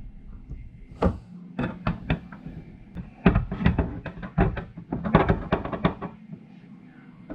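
Irregular sharp clicks and knocks of pliers and hands working on a plastic dashboard cup holder assembly while prying out its small metal parts, in clusters from about a second in to about six seconds.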